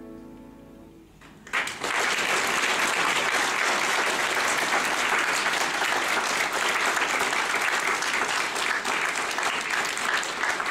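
The song's last notes fade out, then about a second and a half in a large audience breaks into sustained applause.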